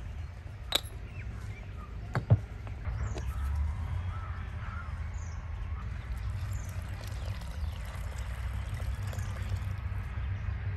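Crows cawing and small birds chirping over a steady low rumble, with two sharp taps about one and two seconds in.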